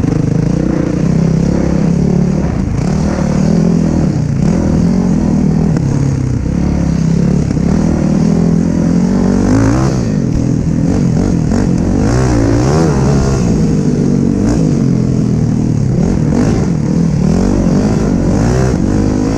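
Dirt bike engine running under way, its pitch repeatedly rising and falling as the throttle is rolled on and off.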